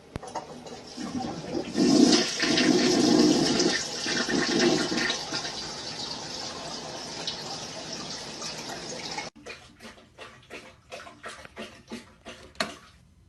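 Toilet flushing: a rush of water that swells about two seconds in and runs on, then cuts off abruptly. After it comes a run of short taps, about three a second.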